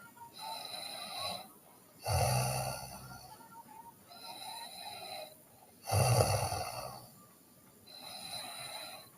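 A sleeping person snoring in a steady rhythm: two loud, low, buzzing snores about four seconds apart, about 2 and 6 seconds in. Between them come quieter, whistly breaths out.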